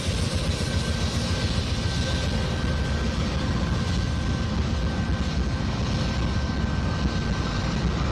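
Several Norfolk Southern diesel-electric locomotives in a lash-up passing close by: a steady, loud low engine rumble, with a thin steady high whine that drops out near the end.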